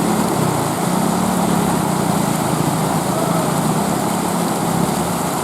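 Small motorcycle engine running steadily, with an even rushing noise behind it.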